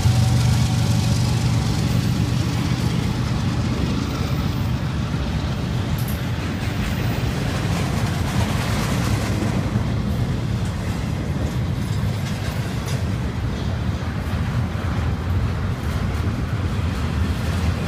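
BNSF double-stack intermodal train's container well cars rolling past, with a steady rumble of steel wheels on the rails.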